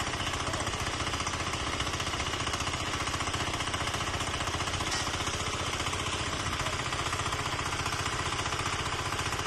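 A small engine running steadily nearby with a rapid, even chugging, at constant speed.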